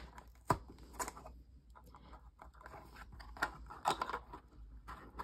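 Small cardboard toy box being opened by hand: faint scattered crinkles and sharp ticks as the top flap is pulled at against a bit of tape.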